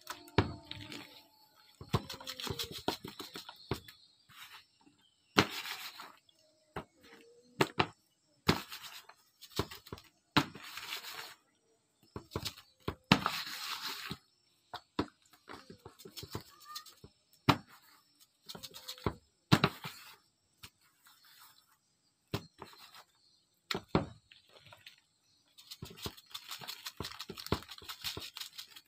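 Hands salting raw fish in a plastic basin: irregular short bursts of grainy rubbing and scraping, with clicks and knocks against the tub, as salt is shaken from a small plastic bag and worked into the fish.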